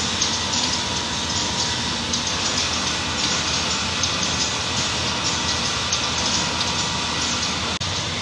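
Steady factory machinery noise with an uneven, fluttering high hiss over a low rumble.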